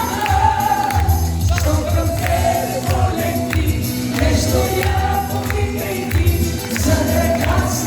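Live band music: a wavering melody line carried over a strong bass and a steady beat, with no sung words.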